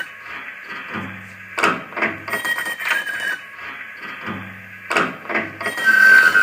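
Musique concrète improvisation on a Revox A77 reel-to-reel tape recorder: a tape loop repeating about every three and a half seconds, with clicks, a low hum and short wavering high tones. Near the end a bright whistling tone slides slowly downward.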